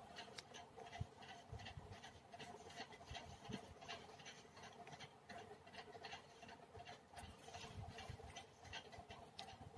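Near silence: faint room tone with a low steady hum and scattered light ticks.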